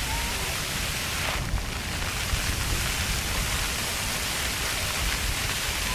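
Park floor fountain: water jets spraying up from the pavement and splattering down in a steady hiss of falling water. The spray briefly thins about a second and a half in.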